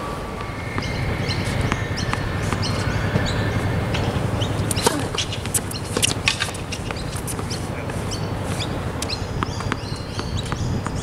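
Tennis ball struck by rackets in a rally on an outdoor hard court, a few sharp pops, the loudest near the middle, over a steady low rumble. Small birds chirp over and over throughout.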